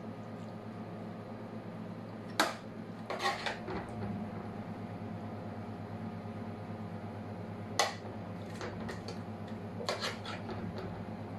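A metal serving spoon clinking and scraping against a metal cooking pot and a ceramic plate as stewed lamb chops and gravy are served, with two sharp knocks about two and a half and eight seconds in among lighter clinks. A steady hum runs underneath.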